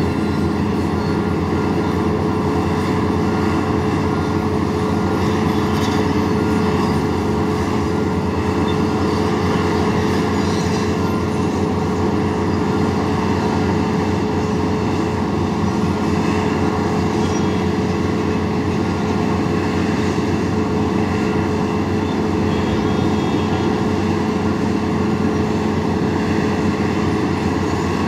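Large crawler excavators with pipe-handling attachments running their diesel engines steadily as they work, a constant drone with a held hum.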